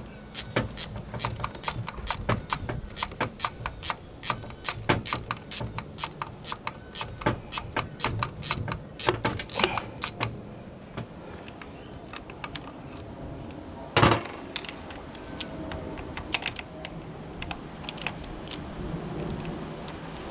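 A run of light, regular metallic taps or clicks, about three a second, during work on an outboard's propeller-shaft seal, stopping after about ten seconds; one heavier knock comes a few seconds later, then a few scattered clicks.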